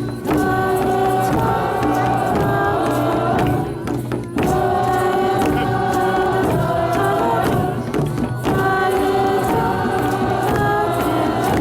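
Background music: a choir singing long held notes in phrases about four seconds long.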